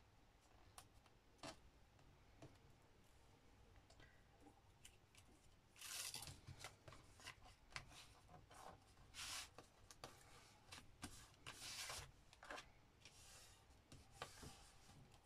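Faint handling of paper and card: a few soft ticks at first, then a run of short rustles and scrapes from about six seconds in.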